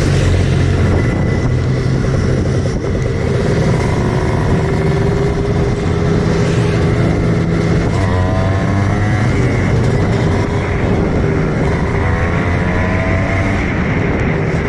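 Kawasaki Ninja two-stroke single-cylinder motorcycle engine running under way, its pitch rising briefly twice as the throttle is opened.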